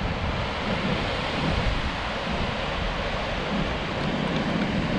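Ocean surf breaking against the foot of rocky sea cliffs, a steady rush of churning water, with wind on the microphone.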